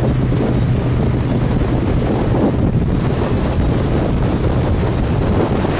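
Wind buffeting the microphone on an open tour boat running at speed, over the steady low hum of the boat's engine.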